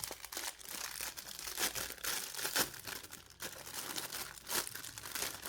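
Plastic packaging crinkling in irregular crackles as it is handled and opened by hand.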